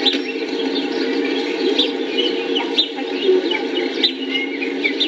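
Small birds chirping and singing, many short quick calls overlapping, over a steady low background rumble.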